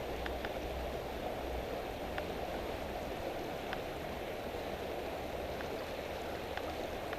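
Steady rush of flowing stream water, with wind rumbling on the microphone near the start and a few faint ticks.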